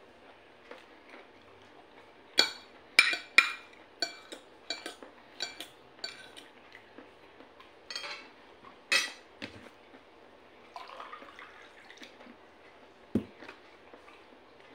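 Spoon and fork clinking and scraping against a plate while eating, a string of sharp clinks between about two and nine seconds in. Near the end, one dull knock.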